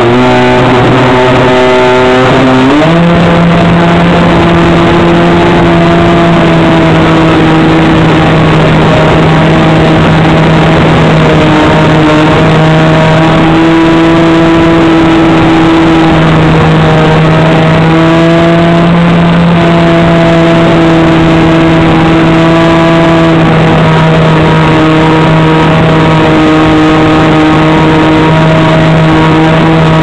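The RC model plane's engine, heard close up through the wing-mounted camera's microphone. About three seconds in it is opened up and its pitch steps higher, then holds steady at high throttle with small wavers for the takeoff and climb.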